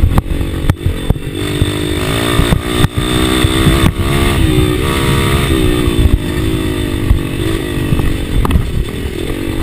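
Enduro dirt bike engine heard on board, its pitch rising and falling as the throttle is opened and closed over a bumpy dirt trail. Several sharp knocks from the bike jolting over bumps.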